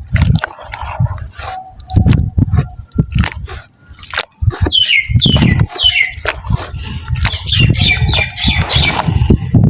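Soft wet mud crumbling in repeated crunches and thuds, with a short lull a little before the middle. Birds chirp in the background: a run of quick downward-sliding chirps about halfway through and more near the end.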